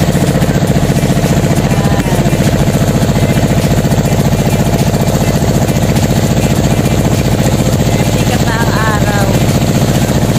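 Motorboat engine of a narrow wooden boat running steadily under way, a loud, even drone at constant speed. A short wavering pitched sound is heard over it near the end.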